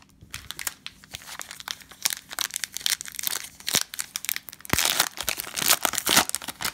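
Foil wrapper of a Panini Prizm basketball card pack being torn open and crinkled by hand, a dense crackling that grows louder about five seconds in as the pack is pulled apart.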